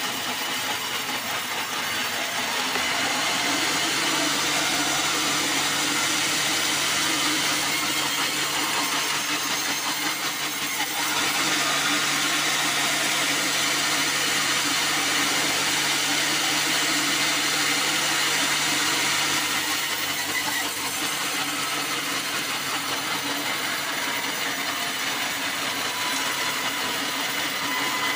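Band sawmill running and sawing through a black acacia log: a steady mechanical hum with a noisy sawing sound over it. It gets louder a few seconds in and drops back about two-thirds of the way through.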